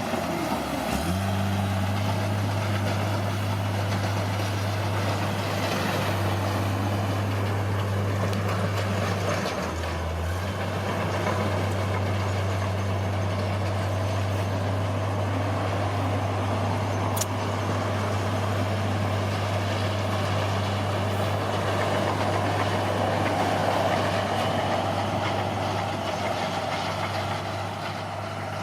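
Heavy diesel engine of earthmoving machinery running steadily, with mechanical clatter over a constant low hum. The engine note dips briefly about a second in and again around ten seconds.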